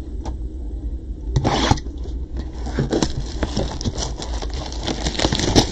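Clear plastic shrink wrap being cut and torn off a box of trading cards: crinkling and scraping in irregular bursts, loudest about a second and a half in and again near the end.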